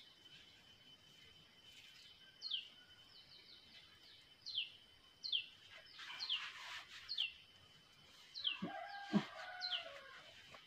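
A bird calling over and over, short faint chirps that fall in pitch, about one or two a second, with a few soft knocks and a brief lower call near the end.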